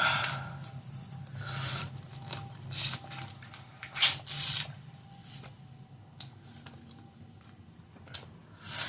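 Close-miked sounds of eating seafood and peeling a tiger shrimp: short wet crackles and smacks of shell and mouth, coming every second or two, with a cluster about four seconds in.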